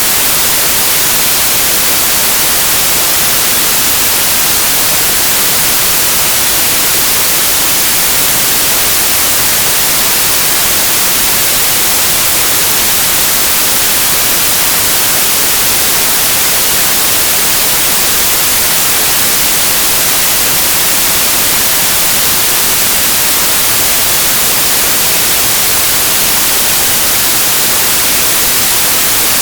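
Steady, unchanging white noise, an even hiss strongest in the highs, with no other sound.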